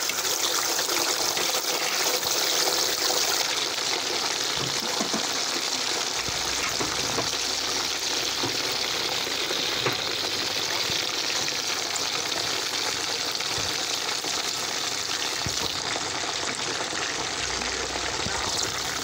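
Freshly added raw chicken feet deep-frying in a wok of hot oil: a steady, dense sizzle with fine crackling.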